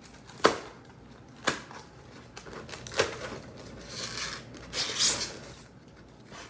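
Packaging being pulled apart to free plant-pot drip trays: three sharp snaps over the first three seconds, then two spells of rustling about four and five seconds in.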